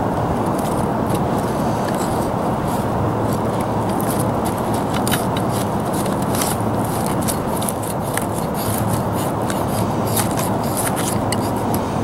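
A high-carbon steel trade knife shaving curls down a wooden stick to make a feather stick, a run of short, quick scraping strokes. Under it runs a steady, even rushing noise, which is the loudest part.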